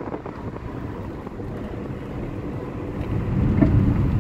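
Chrysler PT Cruiser on the move, heard from inside the cabin at the passenger window: a steady low road-and-tyre rumble that grows louder about three seconds in.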